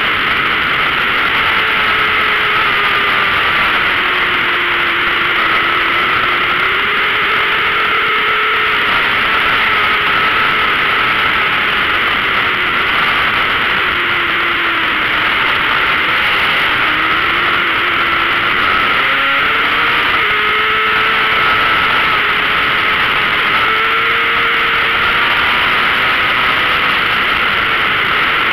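600cc racing motorcycle engine at high revs, heard from a camera mounted on the bike under a heavy rush of wind. The engine note rises and falls with throttle and gear changes through the corners, with a drop about 19 seconds in.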